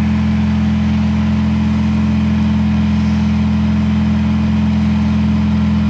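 Twin-cylinder Kubota diesel in a wide-frame Cub tractor running steadily on a fairly high throttle, just after a cold start following months of sitting.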